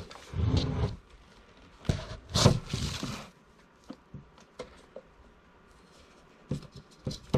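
Plastic vacuum-cleaner parts and packaging being handled: two bursts of rustling and scraping in the first three seconds, then scattered light clicks and taps.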